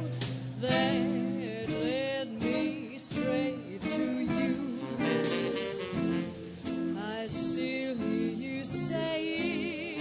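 A small swing band playing a slow ballad live: a melody line with a wide, wavering vibrato over guitar chords and upright bass.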